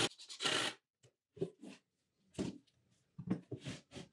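Cordless drill driving a screw into a plywood drawer bottom for most of the first second, then stopping. After that come several separate light knocks and bumps of wood being handled.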